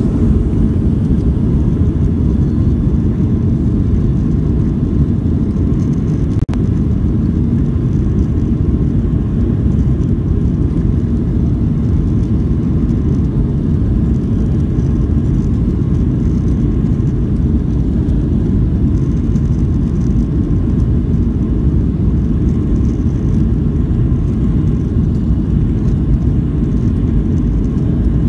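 Inside the cabin of a Southwest Airlines Boeing 737 on its takeoff roll: the jet engines and runway rumble make a loud, steady, low roar.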